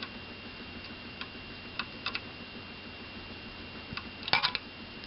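Screwdriver clicking against a small screw in a floppy drive's top cover: a few light, scattered clicks, then a louder quick cluster about four seconds in, as the partially stripped screwdriver struggles to turn the screw.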